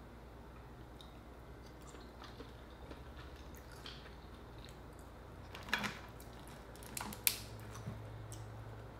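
Close-up eating of cooked Dungeness crab: soft chewing and squishing, then a few sharp cracks and clicks as the crab shell is pulled apart, the loudest a little past seven seconds in.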